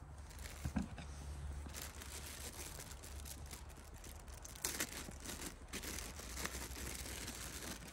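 Thin plastic bag crinkling and rustling as it is opened and handled, with a couple of soft knocks about a second in and a louder burst of crinkling a little past halfway. A steady low rumble runs underneath.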